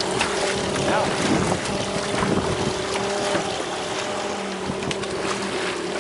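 Boat engine running at a steady hum, with wind buffeting the microphone and the rush of water.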